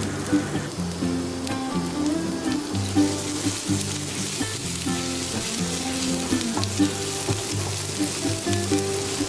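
Food sizzling steadily as it fries in hot oil in a pan, under a background music track of repeating held notes.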